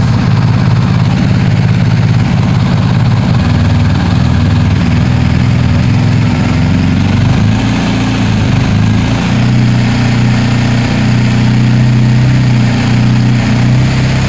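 BMW R1250GS boxer-twin engine running in neutral, heard close to the silencer. The revs are raised slowly from idle towards about 2000 rpm, the point at which the exhaust flap valve starts to close.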